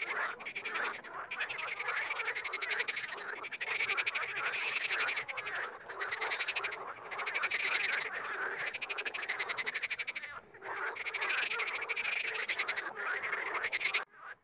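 Frogs croaking: a near-continuous run of rapid, rattling pulsed calls broken by short pauses. The calls stop abruptly just before the end.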